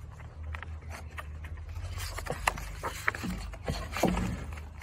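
Pages of a hardback picture book being turned and handled on a wooden table: paper rustling and scraping with scattered light clicks and knocks, over a steady low rumble.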